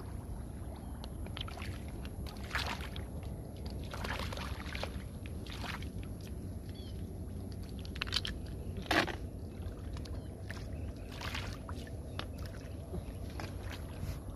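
Hands sloshing and splashing in shallow muddy water, picking up snails, in a string of irregular wet splashes and squelches. A sharper splash or knock comes about nine seconds in, over a steady low rumble.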